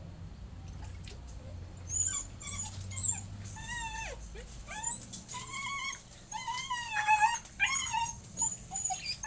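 Husky puppy whining and whimpering in a string of short, high cries that bend up and down in pitch, starting about two seconds in, while being bathed.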